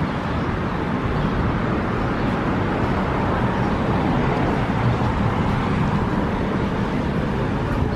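Steady city street traffic noise: a continuous rumble of cars passing on the road beside the sidewalk.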